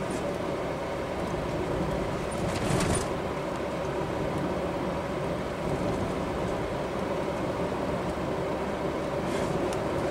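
Steady road and engine noise heard inside a car's cabin while driving at highway speed, with a brief louder noise about two and a half seconds in.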